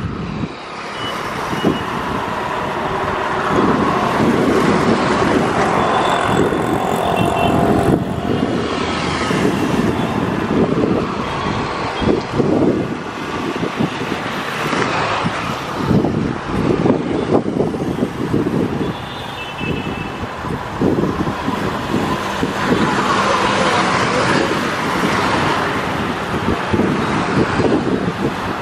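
ALCo diesel locomotive hauling a passenger train, its engine chugging loudly and steadily as it approaches.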